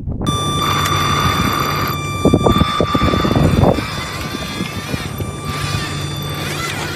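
A large machine's engine running with a steady high-pitched whine over a low drone. A louder stretch of rough noise comes about two to four seconds in, and near the end the whine bends up and down in pitch.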